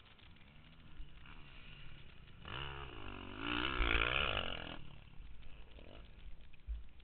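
Dirt bike engine revving as the bike passes, its pitch rising and falling for a couple of seconds, loudest about four seconds in.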